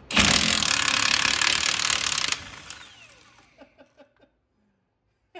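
Kobalt 24-volt cordless impact wrench hammering for about two seconds, then trailing off as it breaks loose a stubborn nut on a drum-brake spindle; a few faint clicks follow.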